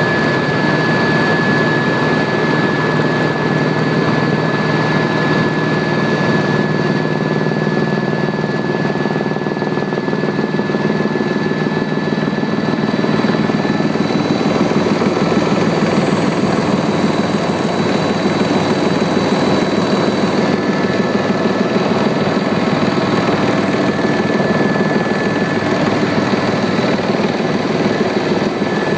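Helicopter rotor and turbine noise: a steady, loud drone with a thin, constant high whine over it.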